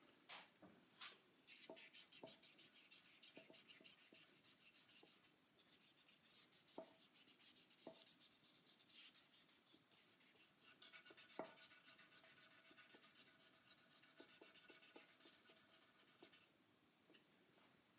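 Hand wet sanding of a lacquered guitar body: fine abrasive paper rubbed over the finish in quick back-and-forth strokes, faint, stopping near the end.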